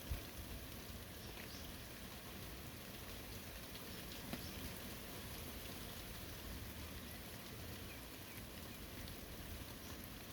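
Steady light rain falling on foliage and surfaces, with scattered individual drips and a small knock just after the start and another about four seconds in.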